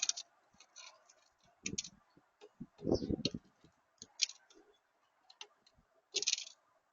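Irregular tapping and clicking of birds pecking at seed on a bird feeder close to the microphone, with two heavier thumps about two and three seconds in.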